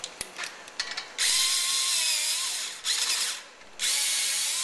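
Cordless drill with a socket extension spinning a brake caliper bolt loose: a few metal clicks as the socket seats, then two short runs of the motor, the first about a second in and the second near the end, with rattling clicks between them.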